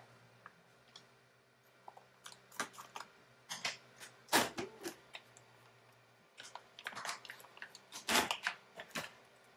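Creality Ender 3 V2 Neo 3D printer running its 16-point automatic bed leveling: stepper motors make short whirring moves and the CR Touch probe clicks as it taps the bed. The sounds are irregular clicks and bursts, loudest about four seconds in and again near the end, over a faint steady motor hum that stops about six seconds in.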